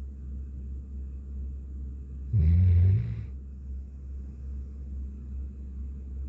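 Golden retriever snoring: one loud, low snore about two seconds in, lasting under a second, over a steady low hum.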